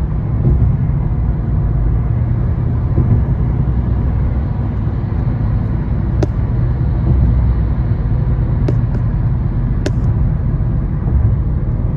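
Steady low rumble of road and engine noise heard inside a car cruising on a freeway, with a few brief clicks about halfway through and near the end.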